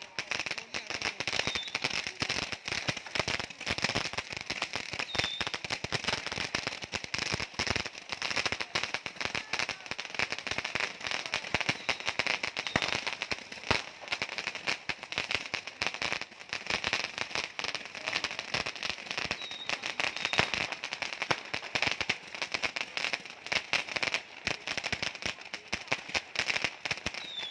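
Firecrackers and fireworks going off nonstop at close range, a dense crackle of rapid sharp bangs with no pause.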